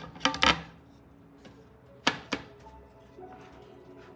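Two pairs of sharp knocks or clicks, one pair right at the start and another about two seconds in, from handling the gaming PC build, over quiet background music.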